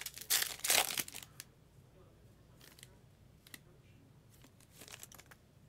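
Foil wrapper of a Topps Chrome trading-card pack crinkling as it is torn open, loudest in the first second or so, then a few faint crinkles as the cards are slid out of the wrapper.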